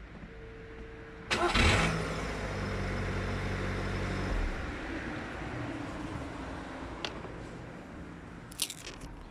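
Škoda Fabia Mk1 started from cold: about a second in the starter cranks briefly and the engine catches, then runs at a steady fast idle that eases off a few seconds later. There is no noise after the starter disengages, a sign that the greased, re-brushed starter is fixed. A few sharp clicks come near the end.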